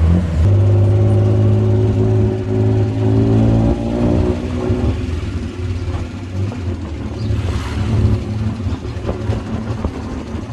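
Tuk-tuk engine running as the auto rickshaw pulls away, a strong steady hum for the first few seconds. About four seconds in it eases into a lower, rougher drone mixed with road noise.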